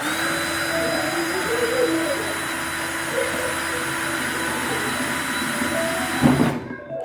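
A small high-speed rotary tool grinding off the head of a stuck screw: a steady whine over a hiss that starts abruptly and stops near the end.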